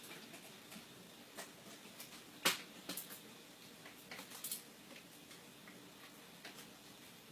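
Scattered light clicks and taps from hands and tools working on a microwave's parts during reassembly, the sharpest click about two and a half seconds in.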